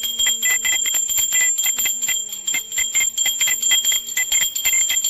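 Brass puja hand bell rung fast and continuously, its clapper striking about eight times a second over a steady, high ringing tone.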